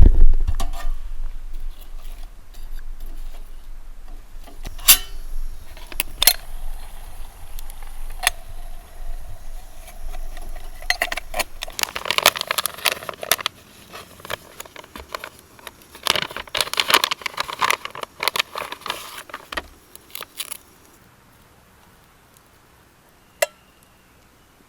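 Metal objects clinking and knocking as camp gear is handled. There is a heavy knock at the start, then scattered clicks and two spells of busy clattering, after which it falls nearly quiet apart from one small click.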